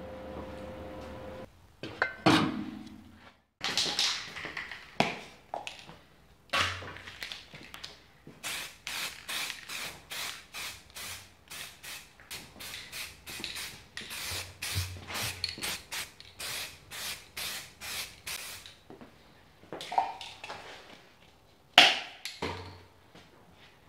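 Aerosol spray can being shaken, its mixing ball rattling in a quick, even rhythm of about two to three strikes a second for around ten seconds. A few separate sharp knocks come before and after.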